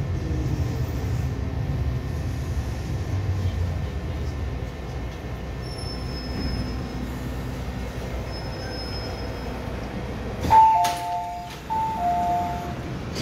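MTR M-Train rolling to a stop at a station platform, its low running rumble fading as it slows. About ten seconds in there is a sharp thump, then the two-note falling door chime sounds twice as the doors open.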